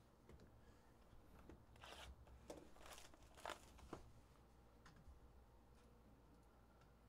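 Faint tearing and crinkling of packaging as a sealed trading-card hobby box is opened by hand: a handful of short rips between about two and four seconds in, the loudest near the middle.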